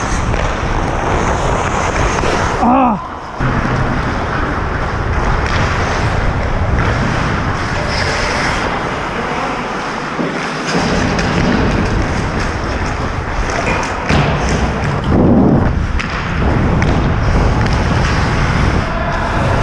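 Steady rushing noise on a helmet-mounted action camera's microphone as an ice hockey player skates, with skate blades scraping the ice.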